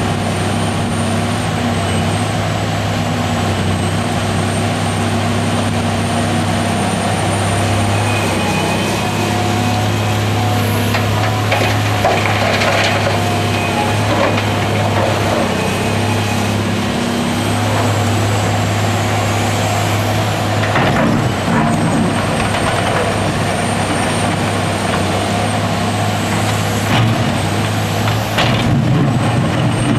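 Caterpillar 345B L hydraulic excavator's diesel engine running steadily as the machine works, its note shifting as it digs and swings to load the dump truck. The Cat 740 articulated dump truck's engine runs alongside it.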